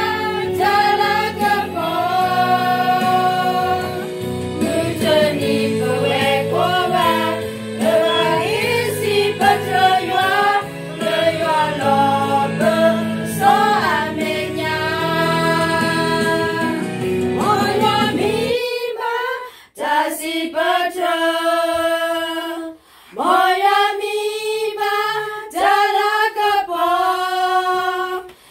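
A small group of women singing a song together over backing music. The backing cuts off suddenly about two-thirds of the way through, and they carry on singing unaccompanied, with a couple of short breaks between lines.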